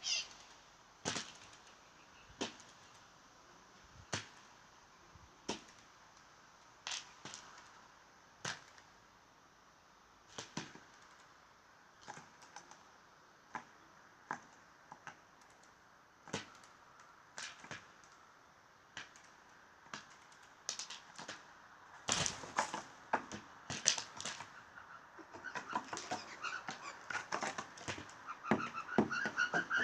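Blue jay making sharp, dry taps, one every second or so, coming quicker and in clusters about two-thirds of the way through, with fainter pitched sounds mixed in near the end.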